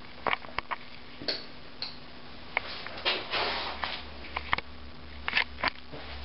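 Irregular sharp clicks, knocks and scuffs of someone moving through an empty small room with a handheld camera, with a longer rustling scrape about three seconds in, over a steady low hum.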